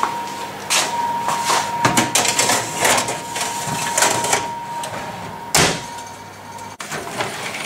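Metal baking tray clattering and scraping as it is slid onto the oven rails, a run of short knocks, then the oven door shutting with a firm thump about five and a half seconds in.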